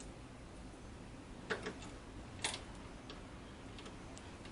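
A few sharp clicks and ticks of small parts being worked into the inverter, likely a connector or fastener being fitted by hand; a double click about a second and a half in and the loudest single click about a second later, with fainter ticks after.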